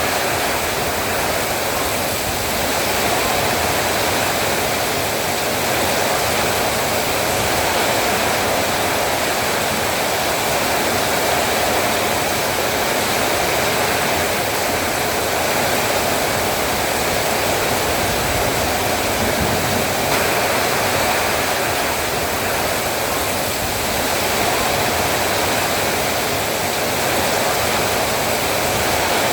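Heavy rain falling in a steady downpour, an even, unbroken hiss.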